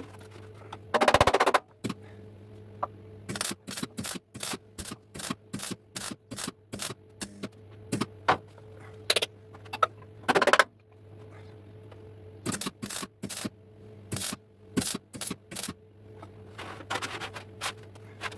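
Runs of sharp knocks, about two or three a second, broken by a few short harsh scraping bursts, over a steady low hum.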